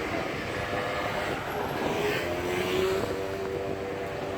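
A steady engine drone with a few held tones that slowly shift in pitch, over a constant background rush.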